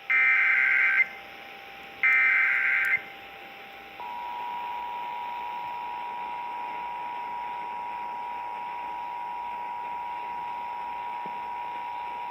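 Emergency Alert System signal over broadcast radio, announcing a tornado warning. It opens with two bursts of SAME header data tones, each a harsh, rapid digital screech about a second long, a second apart. About four seconds in, the steady two-tone EAS attention signal begins and holds on.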